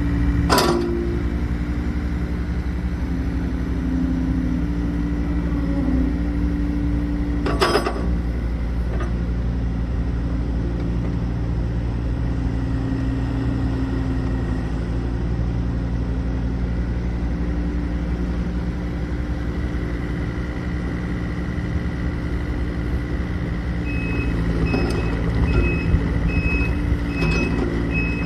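Yanmar diesel engine of a Komatsu PC45 mini excavator running steadily, its note shifting slightly under load. There are two sharp clanks, about half a second in and near eight seconds. About four seconds before the end, a travel alarm starts beeping repeatedly.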